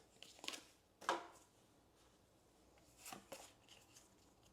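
Pokémon trading cards sliding against one another as they are flipped through by hand: a few soft swishes, about half a second in, about a second in, and a pair about three seconds in.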